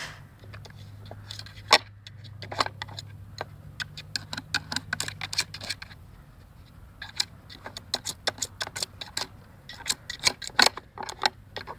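A dog pawing at an intelligence puzzle game: irregular clicks and clacks as the pieces are knocked and shifted, the sharpest knock about two seconds in. A low steady hum sounds under the first half and stops about halfway through.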